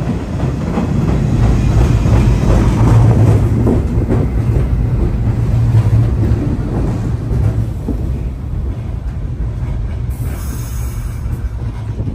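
An R68 subway train on the B line pulls into the station and rolls past close by. Its low rumble is loudest about three seconds in, then eases as the train slows. A brief high-pitched squeal comes about ten seconds in.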